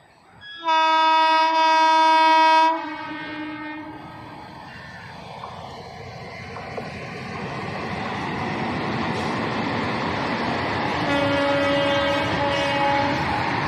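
Indian Railways locomotive horn sounding a loud blast of about two seconds, with a brief break in it. Then the steadily growing noise of a train drawing near, and two shorter horn blasts near the end.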